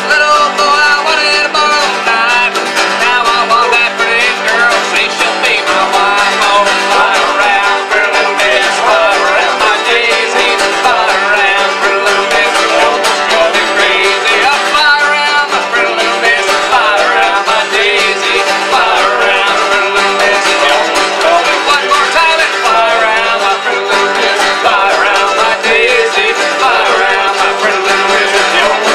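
Live acoustic string band playing a country song, with several acoustic guitars strumming and a mandolin picking, and a man singing the lead.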